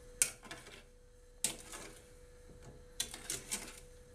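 Metal spoon stirring sugar syrup in a stainless steel saucepan, clinking and scraping against the pan three times about a second and a half apart. The syrup is stirred often so it does not burn before it boils.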